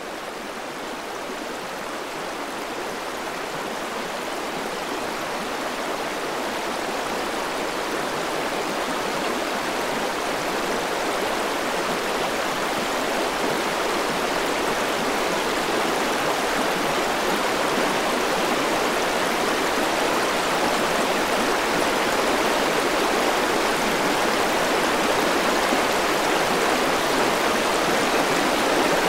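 River water rushing over rocks, a steady noise that grows gradually louder.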